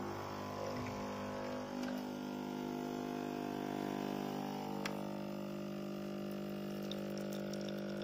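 Capsule espresso machine's pump running with a steady hum, forcing water through the capsule to brew a shot of espresso into the cup.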